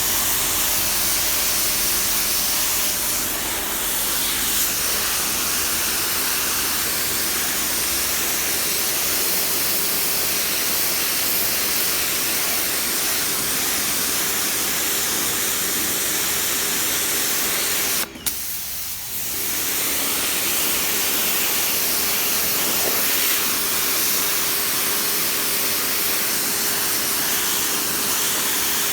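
Mrliance 3500 psi electric pressure washer spraying through its 40-degree nozzle: a steady loud hiss of the water jet with a steady hum from the pump motor underneath. About two-thirds of the way through the spray cuts out with a click for about a second, then resumes.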